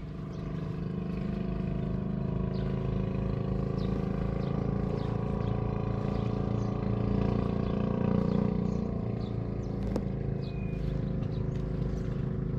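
A motor engine running at a steady speed, a continuous even drone that swells slightly about eight seconds in.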